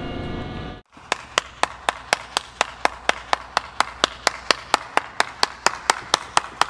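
One person clapping hands steadily, about four claps a second, starting about a second in as background music cuts off.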